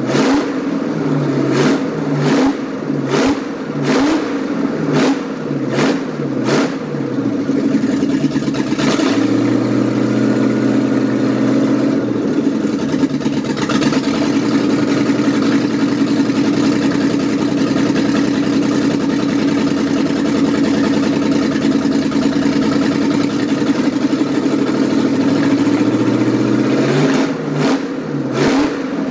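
1965 Ford Mustang engine revved in quick throttle blips, roughly one a second. About twelve seconds in it is held at a steady raised speed for about fifteen seconds, then the quick blips return near the end.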